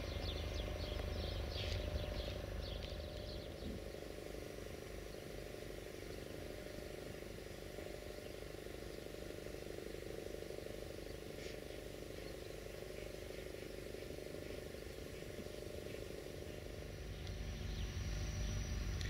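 Steady low mechanical hum with a constant drone, with a few bird chirps in the first few seconds; it grows slightly louder near the end.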